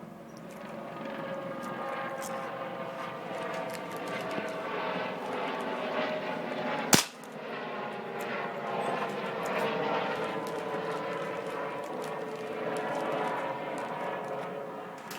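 A single sharp shot from a .22 air rifle about seven seconds in, over a steady engine drone whose pitch slowly drifts.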